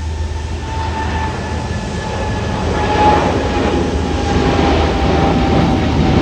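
Boeing 737 MAX 8 jet airliner passing with its CFM LEAP-1B turbofans running, a rumble that grows louder from about halfway in, over a high engine whine that slowly falls in pitch.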